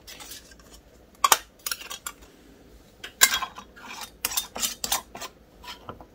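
Metal canning lids and screw bands clinking against glass half-pint jars as they are put on, an irregular string of sharp clicks and taps, the sharpest about a second in and about three seconds in.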